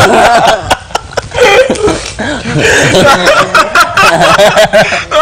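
Several people laughing together, with a man's open-mouthed laugh among them and some indistinct talk mixed in.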